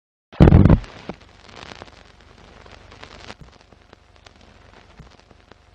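A loud thump about half a second in, then steady crackling with scattered small clicks and pops.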